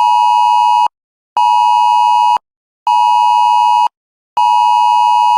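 Mobile phone emergency alert tone from Civil Defense warning of heavy rain: a loud, steady high-pitched tone sounding in repeated pulses about a second and a half long, with half-second gaps between them.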